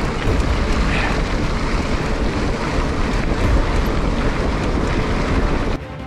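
Steady wind buffeting the microphone over a rumble of a mountain bike ridden over a dirt track. It cuts off abruptly near the end.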